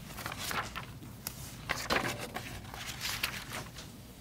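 Scattered soft rustles and light knocks in a quiet room, with no speech.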